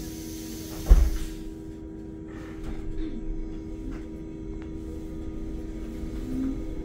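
Cabin of a Solaris Urbino 9 IV LE Electric bus under way: a steady electric hum with road noise. About a second in comes a single loud knock from the bus body, and a hiss cuts off just after it.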